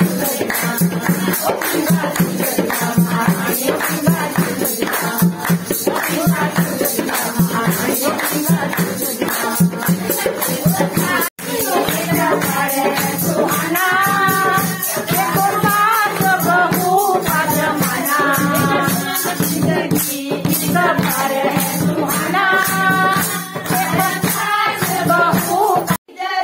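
Bhajan music with a fast, steady jingling rattle of hand percussion such as a tambourine, joined about halfway through by voices singing the devotional song. The sound drops out for an instant about eleven seconds in and again near the end.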